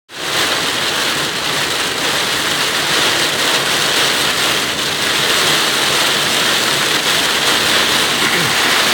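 Torrential downpour hitting a car's roof and windshield, heard from inside the cabin as a loud, steady hiss.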